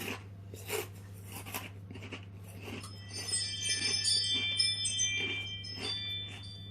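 Crunching of tortilla crisps being chewed, a run of short crackly bites. From about three seconds in, a tinkling chime-like ringing of several high tones sounds for about three seconds and fades. A low steady hum lies underneath.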